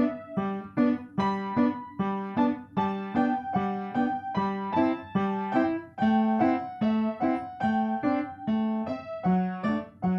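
Piano music: an even, unhurried tune of ringing notes over low accompanying notes, about two notes a second.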